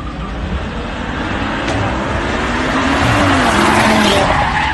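A car speeding along a street and passing close by. Its engine and tyre noise build to a peak about three to four seconds in, the engine pitch rising and then falling as it goes past.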